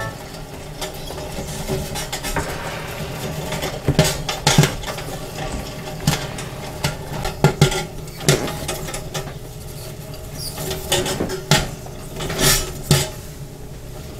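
Popcorn kernels popping in the hot kettle of an Olde Midway tabletop popcorn machine, scattered sharp pops at irregular intervals over the machine's steady hum, the batch nearly done.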